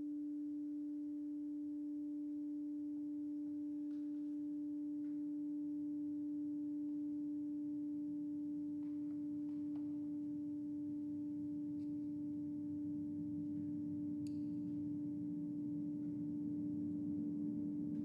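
A steady pure drone tone held without fading, with faint overtones, from a grand piano and live electronics. A low, rough noise swells in beneath it over the last several seconds, with a few faint light clicks scattered through.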